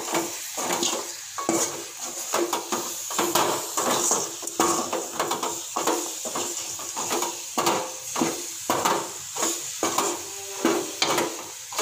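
Metal ladle scraping and knocking against a metal kadai, about one to two strokes a second, as chicken pieces with onions and spices are stirred. A steady sizzle of frying in oil runs underneath.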